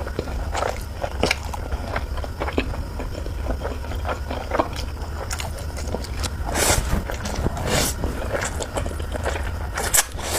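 Close-miked eating of spicy noodles: wet chewing with many short mouth clicks, and two longer noisy slurps a little past the middle, over a steady low hum.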